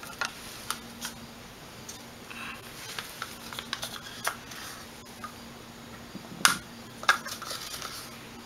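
Light clicks and taps of plastic paint cups and a stir stick being handled and set down on a newspaper-covered table, with two sharper knocks near the end.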